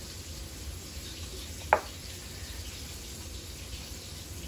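Steady faint hiss with a low hum, and one sharp tap about two seconds in.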